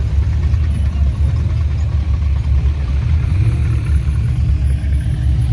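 Car engine idling, a steady low-pitched sound.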